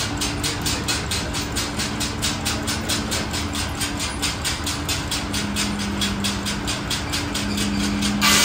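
Antique tractor engine running steadily with an even, rapid beat of firing pulses. It cuts off abruptly near the end.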